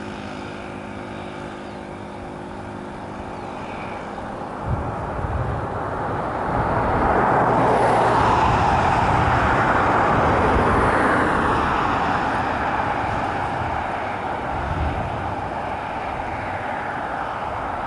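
A vehicle passing on the road: tyre and road noise swells up over a few seconds, peaks, then slowly fades, with low rumbling underneath.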